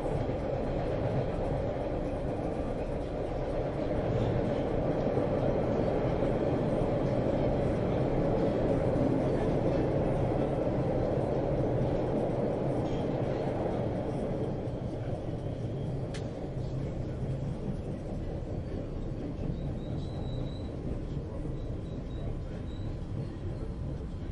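Subway train running on the rails: a steady rumble of wheels and car body, swelling in the first half and easing off in the second half.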